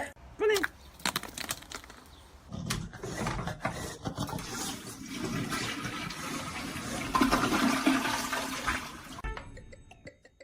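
Rushing water, swelling for several seconds and then cut off suddenly near the end, after a brief pitched sound about half a second in.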